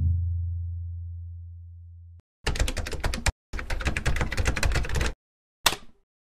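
Typing sound effect: two quick runs of key clicks as title text is spelled out letter by letter, then a single sharp hit near the end. It opens with a deep low hum fading away over the first two seconds.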